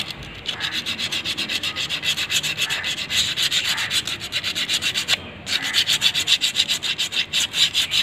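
Emery paper rubbed back and forth across a drum-brake shoe's lining in quick, even strokes, several a second, with a brief pause a little past halfway. The lining is being scuffed clean to stop brake squeal.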